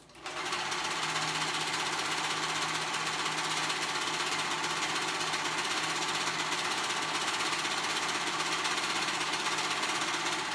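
Serger (overlock machine) running steadily at full speed, stitching two knit fabric pieces together along their raw edges: a fast, even run of rapid stitches that starts right at the beginning and holds a constant level.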